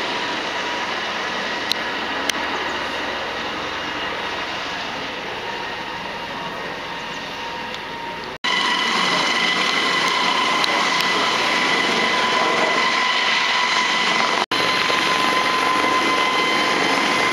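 Helicopter flying past: a steady rushing noise with a level whine. It breaks off for an instant about 8 seconds in and again near 14 seconds, and is louder and closer after the first break.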